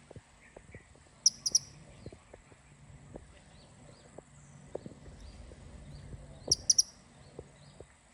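Blue-crowned hanging parrot (serindit) calling: two quick runs of three sharp, very high calls, about a second in and again about five seconds later, with faint short chirps between them.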